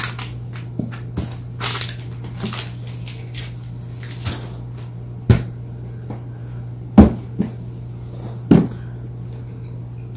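Packaging box being handled and opened: scattered clicks and rustles, with three dull knocks about 5, 7 and 8.5 seconds in, over a steady low hum.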